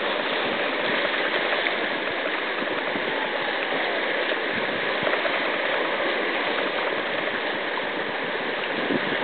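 Fast river rapids rushing steadily, heard close to the water's surface.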